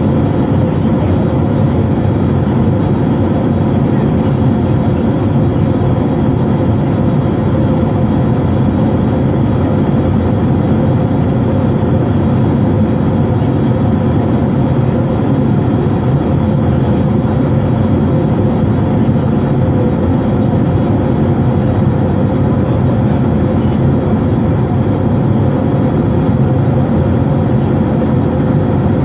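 Airbus A321's jet engines at climb power heard from inside the cabin: a loud, steady roar that doesn't change.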